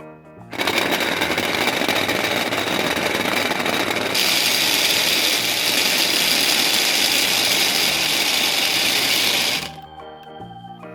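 Toy blender's motor running for about nine seconds, a steady whirring that starts half a second in, gets brighter about four seconds in, and cuts off suddenly near the end.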